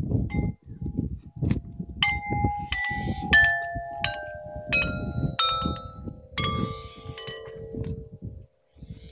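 Large hanging metal tube chimes struck one after another with a stick. About nine strikes, roughly one every two-thirds of a second, start about two seconds in. Each tube rings on, and the tones step down in pitch from strike to strike, overlapping and fading together near the end.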